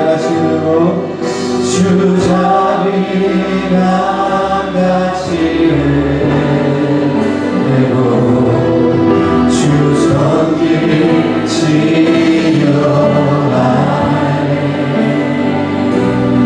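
Church congregation singing a slow Korean worship song together, many voices holding long notes.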